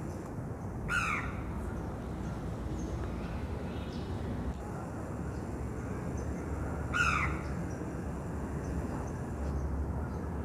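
Crow cawing twice, about six seconds apart, each a short call that falls in pitch, over a steady low background rumble.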